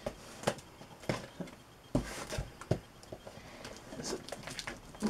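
Scissors working at packing tape on a cardboard parcel: irregular clicks, snips and knocks of the blades and hands against the box.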